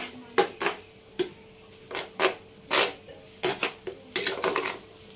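Metal spoon clinking and scraping against a non-stick frying pan while instant noodles are stirred: about ten sharp, irregular strikes.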